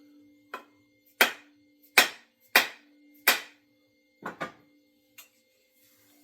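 A series of sharp wooden knocks: four loud strikes about two-thirds of a second apart, then a quick double strike. These are blows seating an axe head onto its new wooden handle.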